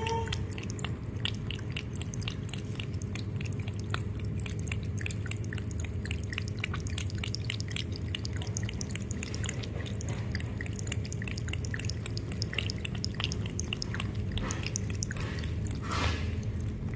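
Cat lapping water from a pet drinking fountain: a quick, steady run of small wet clicks from the tongue over a steady low hum. A brief louder noise comes near the end.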